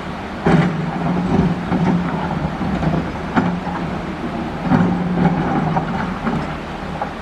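Caterpillar excavator's diesel engine running under load, working harder about half a second in and again near the five-second mark, with sharp knocks of the bucket digging into coral rock.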